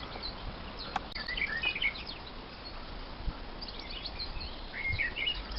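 Small birds chirping in short, high calls, in two spells, over a steady background hiss.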